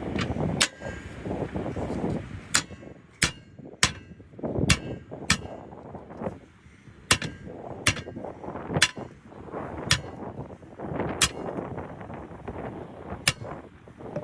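Sharp metallic clanks, about a dozen single strikes at irregular intervals, each ringing briefly, over a low background rumble.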